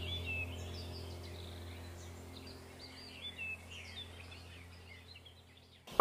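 The end of a meditation music track: a low, steady drone fading away under birdsong chirps, dying to near silence just before the next piece begins.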